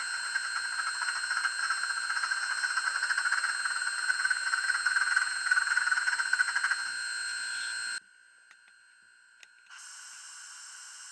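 Stoker sound effect of a sound-equipped H0 Rivarossi Union Pacific Big Boy model locomotive, playing through its small onboard speaker: a steady mechanical hiss with a fast fluttering texture. It cuts off about eight seconds in, and after a brief pause a quieter steady hiss starts near the end.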